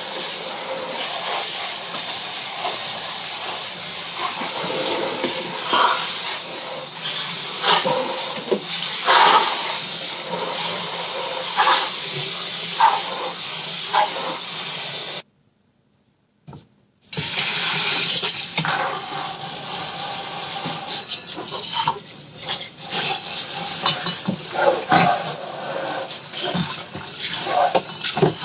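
Kitchen tap running into the sink while plastic food containers are washed, with irregular knocks and clatter of the containers against each other and the sink. The sound cuts out completely for about two seconds just past the middle, then the running water and clatter resume.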